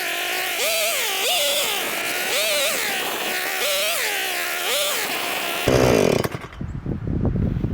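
Husqvarna 440e II two-stroke chainsaw cutting firewood, its engine note dropping under load and rising again about once a second. Near the end it gives way suddenly to wind on the microphone and rustling.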